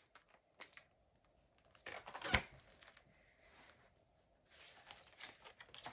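Paper pages of a hardcover picture book rustling as the book is handled and turned, with a short sharp knock about two seconds in.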